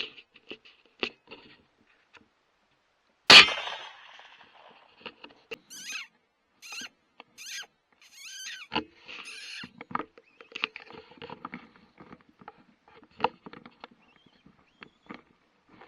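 A single sharp rifle shot about three seconds in, the loudest sound here. It is followed by a run of short squeaks and scattered small clicks.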